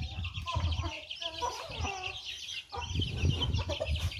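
Free-ranging chickens feeding: hens clucking and a brood of chicks peeping with many short, high chirps that run on without a break.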